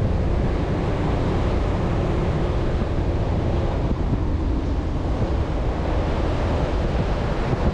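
Steady rush of wind on the microphone over the low rumble of a Chevrolet Colorado ZR2 Bison pickup driving along soft beach sand.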